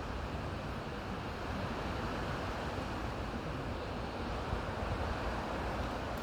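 Wind rushing steadily through forest trees, a continuous surf-like rush of leaves and branches, with low wind rumble on the microphone.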